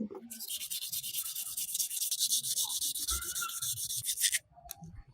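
Hand sanding with sandpaper: fast, even back-and-forth strokes for about four seconds that stop shortly before the end, with a sharp knock just at the start.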